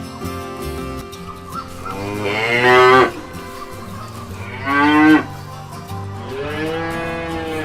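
A cow mooing three times: a loud call about two seconds in, a short loud one about five seconds in, and a longer, softer one near the end, with background music underneath.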